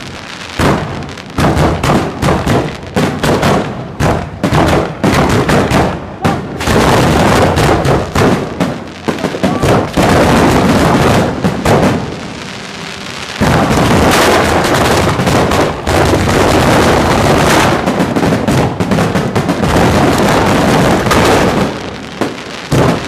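Fireworks finale heard from the firing position: aerial shells launching and bursting in rapid, overlapping volleys, so dense that the bangs merge into one continuous din. There is a brief lull about twelve seconds in before the barrage resumes, and it tapers off near the end.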